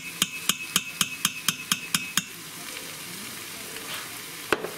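A spoon is tapped about ten times in quick succession, roughly four taps a second, against the stainless-steel inner pot of an Instant Pot to knock off the beef bouillon paste, and the pot rings with each tap. There is one more knock near the end, and beef sizzles steadily as it browns in the pot.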